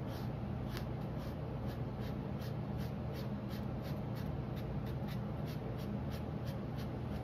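Felt-tip marker scribbling back and forth on drawing paper, filling in a small area with short strokes, about three a second. There is a steady low hum underneath.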